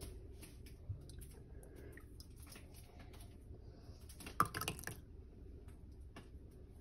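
A ladle serving thick oat atole from a stainless steel pot into a ceramic mug: soft pouring and dripping with small scattered clicks, and a brief cluster of louder clinks about four and a half seconds in.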